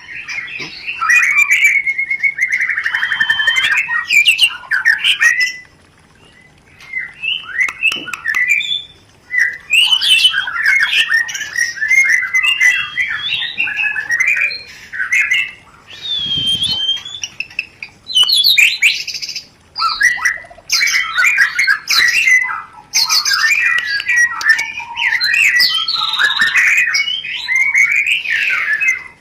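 White-rumped shamas (murai batu) in breeding condition giving rapid chattering calls, squawks and whistled phrases, in bursts broken by short pauses.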